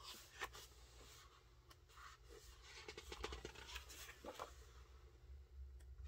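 Large pages of a hardcover photobook being turned by hand: several soft paper rustles and flaps, most of them in the middle, from about two and a half to four and a half seconds in.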